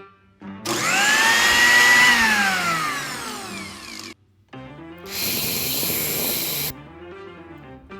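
Cartoon sound effects over light background music. Starting just under a second in, a loud noisy effect rises briefly in pitch and then slides down for about three seconds. About five seconds in comes a shorter harsh buzzing hiss, drill-like, lasting about a second and a half.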